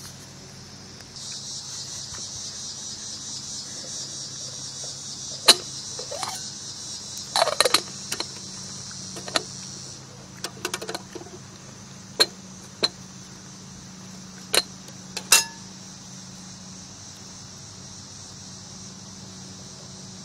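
Insects buzzing in a steady high chorus from about a second in, dropping away around the middle, over a faint low hum. Through the middle come sharp metallic clicks and knocks, some in quick clusters, as the aluminum percolator is picked up and handled on the grill grate.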